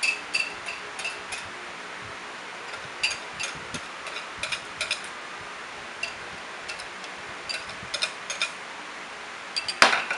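Spatula knocking against the side of a stainless steel mixing bowl during stirring: light clicks with a brief metallic ring, about three a second, in several short runs, with one louder knock near the end. A steady hiss runs underneath.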